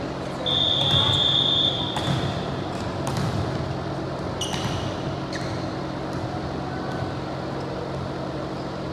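Ball hits and thuds in a large gym during an indoor volleyball game, under a steady low hum. A single steady, high whistle blast starts about half a second in and lasts about a second.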